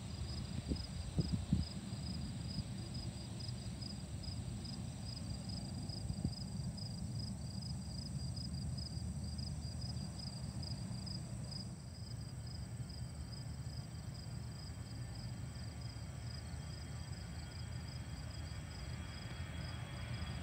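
Insects trilling in the grass, a steady high pulsing chirp, over a low wind rumble, with a few bumps on the microphone near the start. From a little past halfway a faint jet whine comes in and grows louder: an Airbus A320 spooling up on its takeoff roll.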